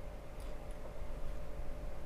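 A few faint ticks from a single-bed knitting machine being handled between carriage passes, over a low steady hum.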